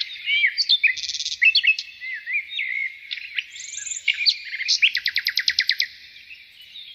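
Small songbirds chirping and twittering, with many short, varied calls and whistles overlapping, and a rapid trill of about ten notes a second a little under five seconds in.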